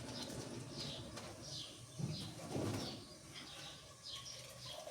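Birds chirping: a steady run of short, falling chirps, several a second, with a dull knock about two seconds in.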